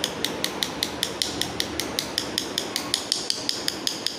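A paintbrush tapped repeatedly against a pen barrel, light evenly spaced clicks about five a second, flicking watercolor spatter onto the paper.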